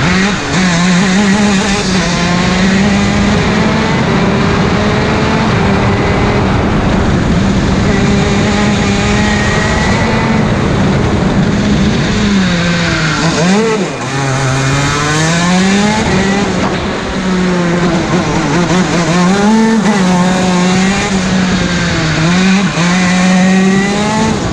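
KZ 125 shifter kart's single-cylinder two-stroke engine running hard on track, heard from onboard. Its note rises and falls with the throttle, dropping low about thirteen seconds in and then climbing back up, with several more dips and climbs toward the end.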